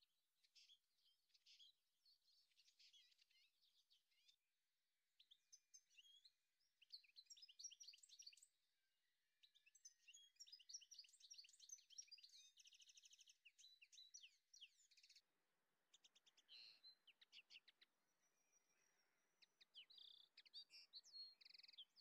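Faint songbirds chirping, many quick high notes with a rapid trill a little past halfway. About fifteen seconds in, a faint low hiss comes in under the birdsong.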